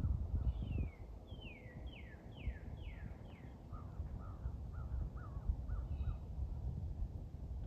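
A bird calling: a quick series of about seven clear notes, each sliding down in pitch, then a series of shorter, lower notes that end about six seconds in. A low rumble of wind or handling noise runs underneath and is loudest in the first second.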